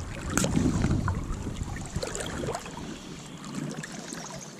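Creek water running and trickling, with a short swish about half a second in as the fly line is lifted off the water for a cast, followed by scattered small clicks and splashes.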